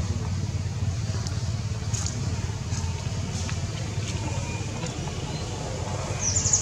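Steady low rumble of an engine running nearby, with a few faint ticks and a brief high-pitched chirping near the end.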